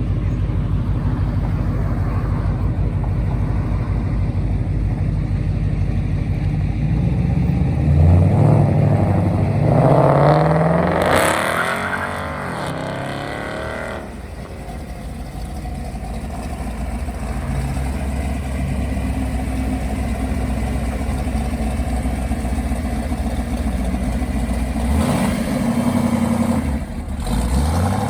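Car engines running at low speed. About eight seconds in, one accelerates hard, its pitch climbing as it pulls away; near the end another engine revs briefly.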